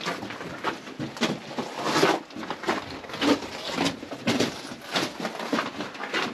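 Footsteps crunching on the loose rock and gravel floor of a mine tunnel, an even walking pace of about two steps a second.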